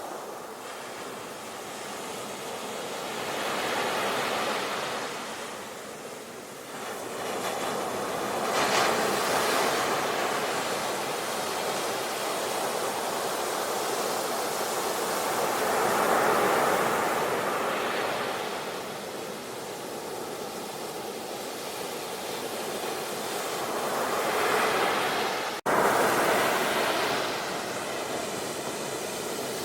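Sea waves breaking on a shore in slow surges, each swelling up and washing back over several seconds. Near the end the sound cuts out for an instant, then resumes loud.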